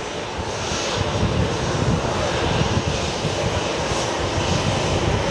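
Aircraft engines rumbling loudly and steadily, with a crackling low rumble under a broad roar, as a plane takes off or passes the airport.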